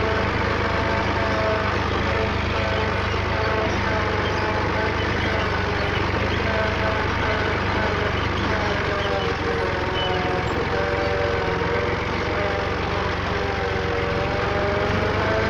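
Millat tractor's diesel engine running steadily while the tractor is driven, its note wavering slightly in pitch in the second half as the engine speed changes.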